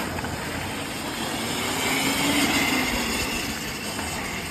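Electric Formula Student race car driving past: its motor whine swells to a peak about two seconds in and then fades, over a low rumble.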